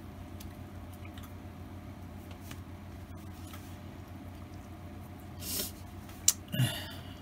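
Low steady hum of a motorized display turntable slowly spinning a diecast van. Near the end come a brief hiss, a sharp click and a short knock.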